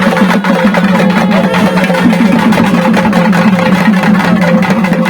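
Loud festival procession drumming (kottu): rapid, dense drum strokes over a steady low drone.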